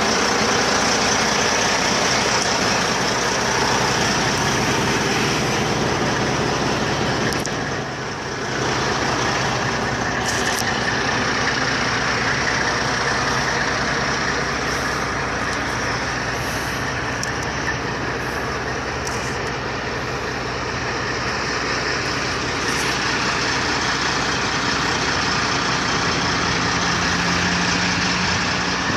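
Diesel semi truck idling steadily: a low engine hum under an even rushing noise, dipping briefly about eight seconds in.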